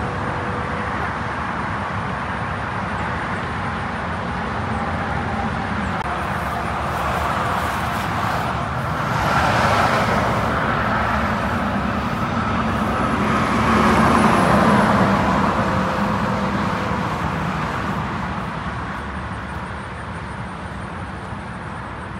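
Steady road traffic noise, swelling louder as vehicles pass about nine seconds in and again around fourteen seconds, then easing off toward the end.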